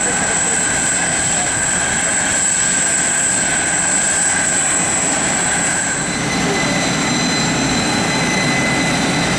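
Loud, steady whine of jet aircraft turbines, with high-pitched tones that shift to a new set about six seconds in.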